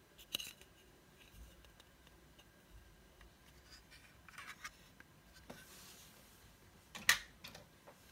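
Plastic clicks and light scraping as a round plastic motion-sensor night light and its mounting plate are handled. There is a short click near the start, some scraping about four and a half seconds in, and the sharpest click about seven seconds in.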